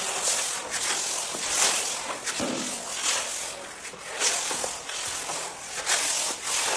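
Hand spatula scraping and spreading wood-dust joint filler across herringbone parquet to close the gaps between the boards: repeated gritty scraping strokes, about two a second.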